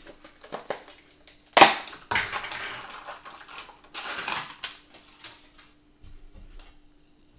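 Guacamole container being opened and handled: a sharp crack about one and a half seconds in, then two spells of crackling, rustling packaging.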